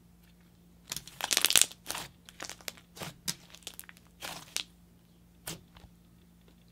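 Thick, creamy clay butter slime being stretched, folded and pressed by hand, giving a dense crackle about a second in and then scattered small pops and clicks.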